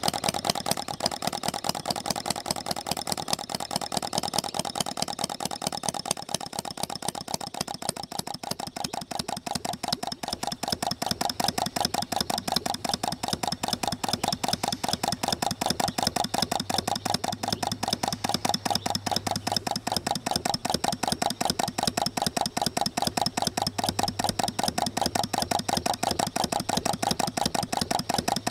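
Model two-stroke non-compression gasoline engine running with a rapid, even firing beat. It dips a little softer about eight to ten seconds in, then runs steady and slightly louder.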